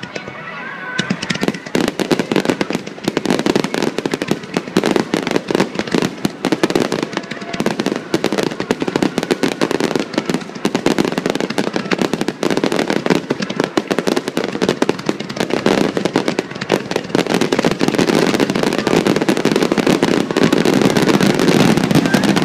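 Fireworks display: a dense, continuous barrage of bursting shells and crackling, growing a little louder toward the end.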